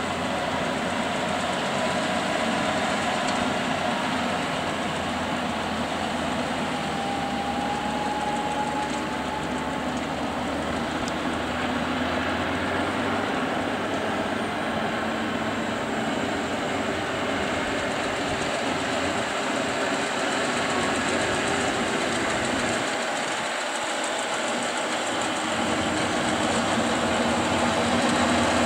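John Deere tractor engine running steadily under load while pulling a John Deere 592 round baler, with the baler's machinery running along with it. The drone grows a little louder near the end.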